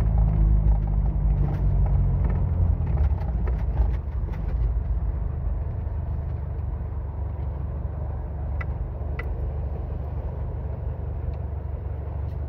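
Car engine running with a low rumble that drops in level about four seconds in and settles into a steady, quieter hum. Two light clicks sound near the middle.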